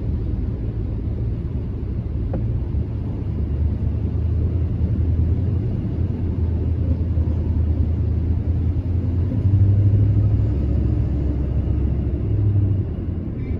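Steady low rumble of a car driving on a wet, partly flooded road, heard from inside the cabin: engine and tyres on the soaked pavement, swelling louder for about a second around nine to ten seconds in.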